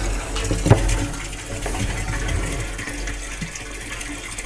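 Garden hose pouring water into a blue plastic drum through its top opening, a steady splashing fill. A single sharp knock comes about a second in, and the pouring grows quieter toward the end.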